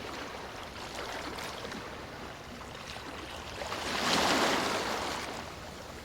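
Ocean waves washing onto a beach, with one wave surging louder about four seconds in and then falling back.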